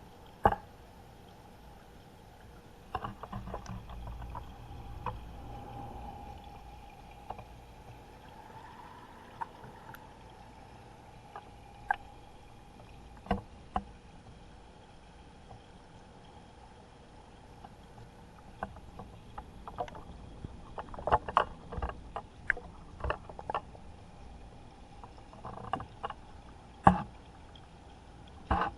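Water sloshing, splashing and dripping in a giant octopus's aquarium tank as the octopus breathes. Scattered sharp splashes come thickest in a cluster near the end, over a steady faint hum.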